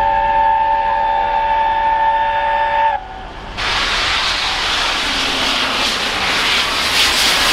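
Whistle of A1 Pacific steam locomotive no. 60163 'Tornado', a held note of several tones that stops about three seconds in. After a short dip comes the rushing hiss of the engine and its train approaching at speed, growing louder.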